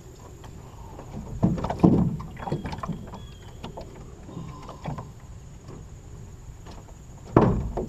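Knocks and thumps on an aluminum jon boat's hull and deck as a person moves and handles gear aboard, with loud thumps about a second and a half in and again near the end.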